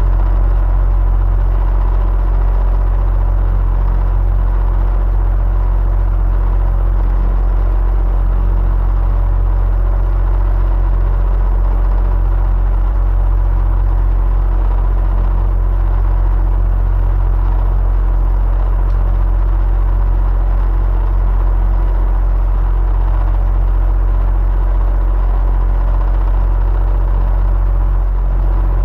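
Electric fan running steadily: a constant deep rumble of moving air with a faint steady motor hum, unchanging throughout.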